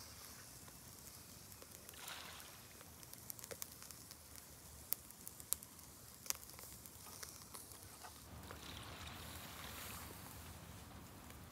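Chicken gizzard skewers grilling over charcoal in a shichirin: a faint steady sizzle with scattered sharp crackling pops from the coals and dripping fat. A soft rushing hiss swells about two seconds in and again near the end.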